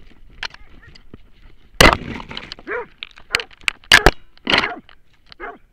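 Close-range scuffle between dogs and wolves in snow: several sudden loud snarling bursts and sharp cracks, with a few short yelps.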